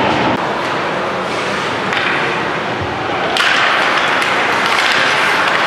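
Ice hockey play in an arena: skate blades scraping the ice, with scattered clacks of sticks and puck. The scraping grows louder and busier about three and a half seconds in.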